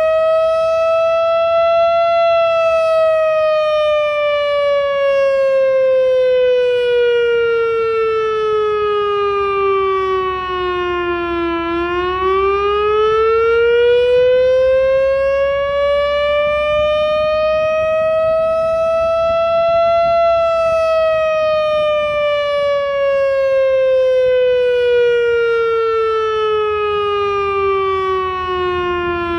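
Loudoun Masterblaster outdoor warning siren sounding its monthly test in a slow wail. Its single tone, with a stack of overtones, falls over about ten seconds, climbs back over about eight, and falls again near the end.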